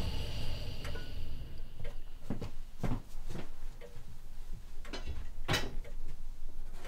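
A few light knocks and clicks at uneven intervals over a low room hum; the loudest comes about halfway through.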